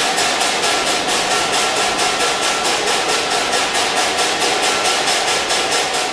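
A loud machine or engine running steadily, with a regular pulse of about four to five beats a second.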